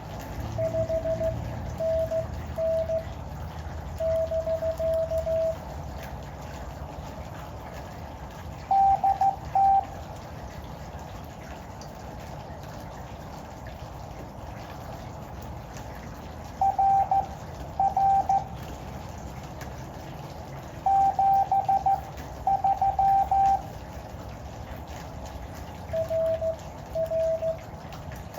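Morse code (CW) tones from an Elecraft KX2 ham radio transceiver: bursts of dots and dashes at two slightly different pitches, taking turns as the two stations exchange, over a steady hiss. The higher-pitched keying is louder, near the middle of the stretch; the lower one sends at the start and again near the end.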